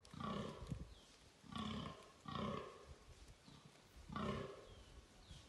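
Fallow deer stag roaring in the rut: four short, deep calls of about half a second each, the last about four seconds in.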